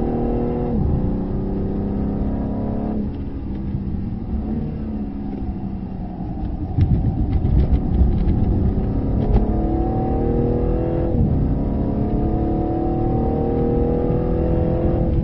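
Performance car's engine heard from inside the cabin at track speed: it eases off through a corner, then accelerates hard with rising revs, with a quick upshift about eleven seconds in before it pulls again. A few sharp clicks come through in the middle.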